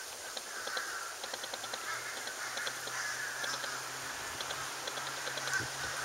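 Crows cawing faintly in the distance, with faint high ticking calls over them.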